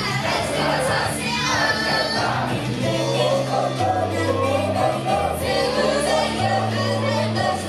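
Idol-group pop song performed live: several voices singing a wavering melody over the music, with a bass line holding long notes.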